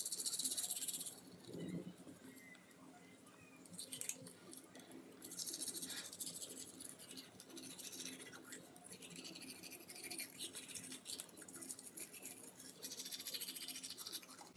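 Manual toothbrush scrubbing teeth in quick, scratchy back-and-forth strokes, pausing from about one to four seconds in, then brushing steadily again.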